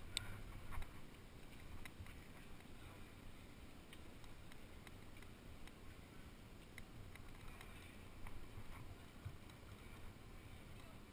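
Quiet low rumble of wind on a body-worn camera's microphone, with scattered light clicks and taps from a climber's hands and gear moving on the rock.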